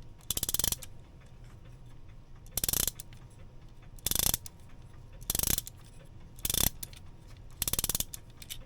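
Herschede clock movement being wound with a key: the ratchet click chatters in six short bursts of rapid clicks, one per turn of the key, as the mainspring is wound up to full.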